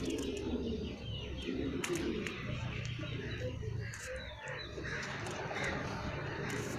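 Domestic pigeons cooing, with smaller birds chirping in the background.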